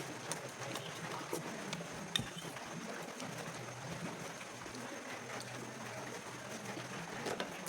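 A person chewing and eating, with frequent small mouth clicks and smacks over a low steady hum.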